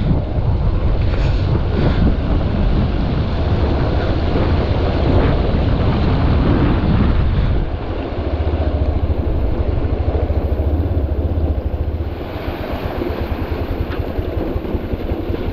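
Honda Hornet 2.0 motorcycle's single-cylinder engine running at low speed as the bike rides over a rocky track flooded with flowing meltwater, tyres splashing and churning through the water, with wind on the microphone.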